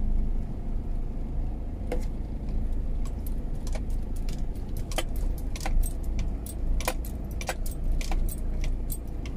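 Car driving slowly on a bumpy dirt road, heard from inside the cabin: a steady low rumble of engine and tyres, with irregular light clicks and jingling rattles as the car jolts over the rough surface.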